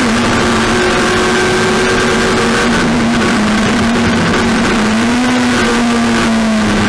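Race car engine held at high revs, its note staying nearly level with small dips and rises, over a steady rush of wind and road noise.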